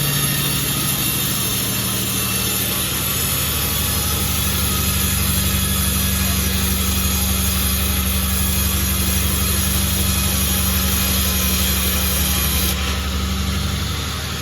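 Sawmill running steadily with its blade cutting through jackfruit wood: a constant low engine hum under a high hiss from the cut, which stops suddenly near the end while the machine keeps running.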